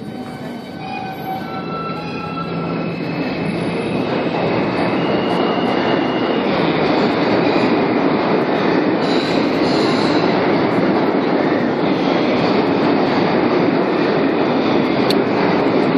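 New York City subway train on the tracks, its rumble and rail noise building over the first several seconds and then holding loud and steady, with thin wheel-squeal tones in the first few seconds.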